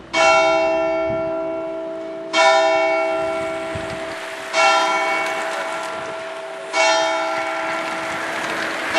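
A single church bell tolling, struck about every two seconds at the same pitch, each stroke ringing on and fading before the next.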